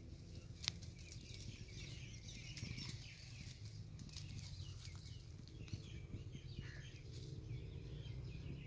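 Crested porcupine rustling through dry twigs and leaf litter as it forages, with small birds chirping in the background and a low steady rumble underneath.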